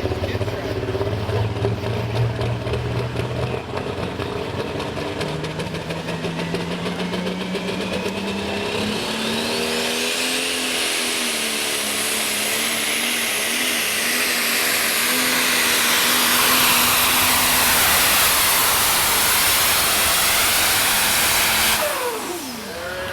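Modified farm tractor's turbocharged diesel engine at full power under load: the engine note climbs while a high turbo whine rises steeply and holds. Near the end the sound drops away suddenly and the pitch falls as the throttle comes off.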